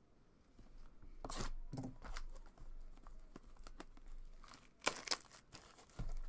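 Trading-card packaging being torn open and crinkled: a string of sharp rips and rustles of wrapper starting about a second in.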